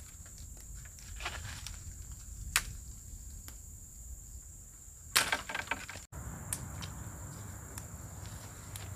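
Dry branches and sticks cracking and snapping as they are pulled and broken off in brush: a few single sharp cracks, then a louder cluster of snaps about five seconds in.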